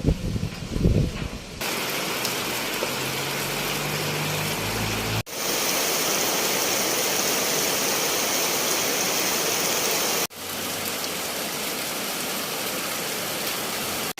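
Heavy rain falling, a steady even hiss that breaks off and restarts abruptly twice as the footage cuts between takes. A faint low hum lies under the rain in the first take.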